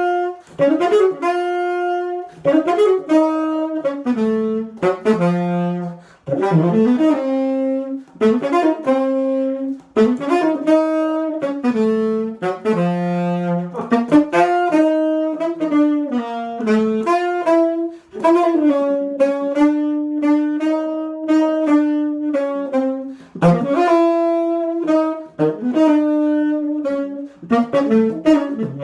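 Solo tenor saxophone playing a fast jazz line, quick separated notes with short breaks for breath, and no accompaniment.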